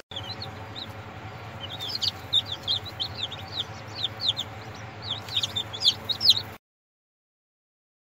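Newly hatched chicken chicks peeping: many short, high chirps coming fast and overlapping, over a low steady hum. The sound cuts off suddenly about two-thirds of the way through.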